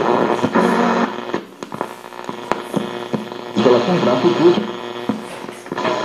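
Vintage Zenith clock radio playing through its small speaker. A broadcast voice cuts in and out between quieter stretches of crackle and clicks, over a steady mains hum.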